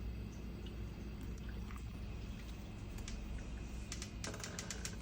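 Hamilton Beach programmable drip coffee maker brewing: a steady low hum with scattered small clicks and pops, which thicken into a quick run of crackling ticks about four seconds in.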